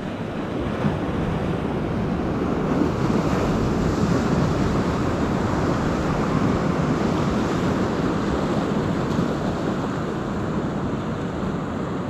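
Ocean surf washing against rocks, with wind buffeting the microphone. The wash swells a few seconds in and eases off toward the end.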